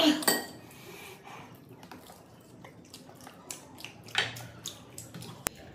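Eating at a table: a loud noisy mouth sound at the start, then quiet chewing with many small clicks and light clatter of plates and bowls, and one sharp clink near the end.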